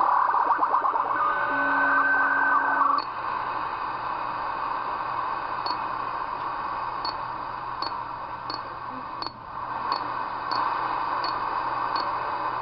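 Magnum S45HP CB radio's speaker on channel 38 lower sideband. For about three seconds it gives a garbled incoming signal with steady whistling tones, then drops to band static hiss with faint regular ticks.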